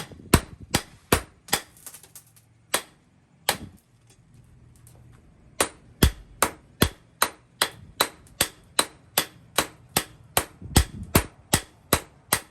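Hand hammer striking steel on an anvil in hand forging, sharp evenly spaced blows about three a second, with a pause of about two seconds a third of the way in before the hammering resumes.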